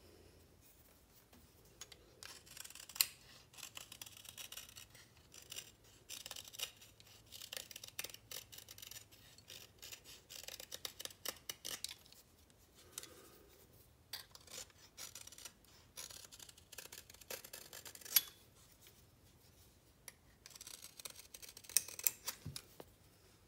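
Utility knife blade shaving and scraping a small wooden lure blank by hand, in bursts of short cutting strokes separated by brief pauses, with a few sharp clicks.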